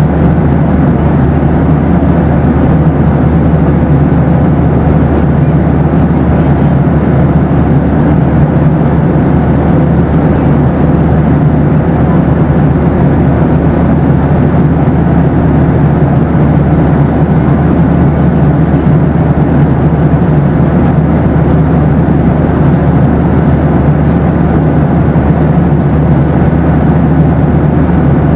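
Steady cabin drone inside a Boeing 737 in flight: an even, deep rumble with a faint steady hum on top, unchanging throughout.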